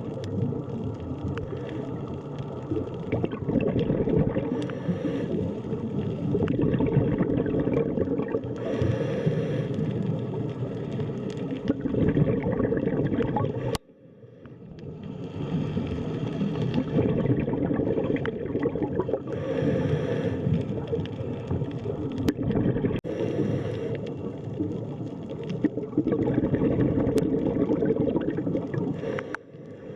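Underwater ambience: a dense, muffled rumble of moving water and bubbling. It drops out abruptly about halfway through and swells back up over a couple of seconds.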